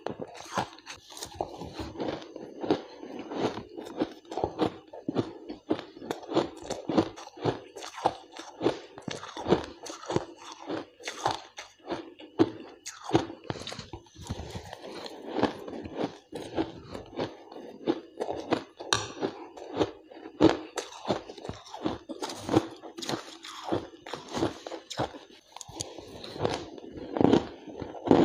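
A person biting and chewing mouthfuls of crunchy shaved ice, a continuous run of rapid, sharp crunches.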